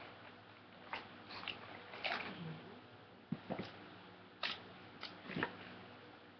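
Scattered clicks, taps and rustles of a shoebox being handled and opened, about a dozen short irregular sounds.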